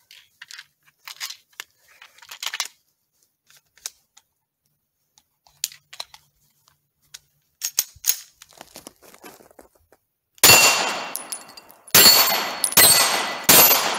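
Glock 17 9mm pistol fitted with a 50-round drum magazine being handled with small scattered clicks and rattles, then fired four times starting about ten seconds in. The first two shots are about a second and a half apart, the rest come faster, and each one rings out.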